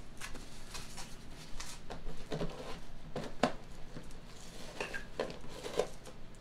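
Scattered light knocks and clinks of objects being handled and set down in a workshop room, the sharpest knock about halfway through, over a faint steady hum.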